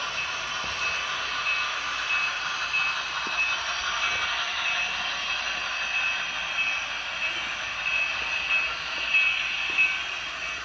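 Model train running on the layout's track: a steady electric-motor whir with a wavering high whine and the light rolling of wheels on rails, broken by a few small clicks.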